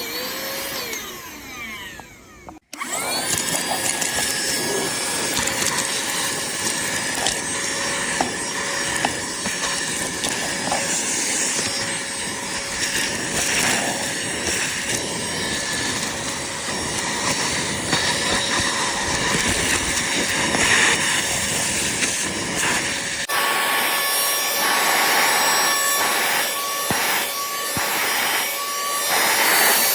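CODN cordless handheld vacuum motor running with a steady whine. It winds down and stops about two and a half seconds in, then spins up again. Its nozzle rubs and scrapes over a surface, in repeated rubbing strokes over the last several seconds.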